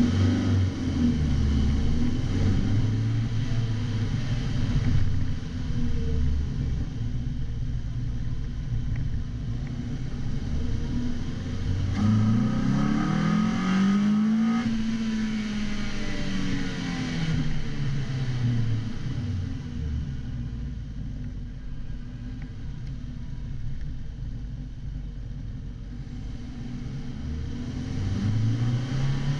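Toyota MR2 Mk3's 1.8-litre four-cylinder engine breathing through a K&N open induction kit. It revs up and back down once midway, runs lower and steadier for a while, then revs up again near the end.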